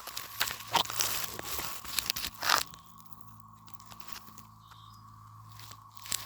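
Crunching and crackling for the first two and a half seconds, then quieter, with a faint steady hum underneath.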